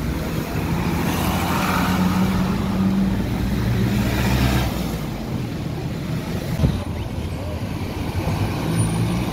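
A motor vehicle engine running at low revs, a steady low hum over outdoor noise, with one sharp knock about six and a half seconds in.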